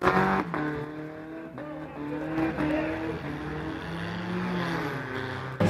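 Several demolition derby cars' engines running at once, the pitches overlapping and swelling a little as they are revved lightly.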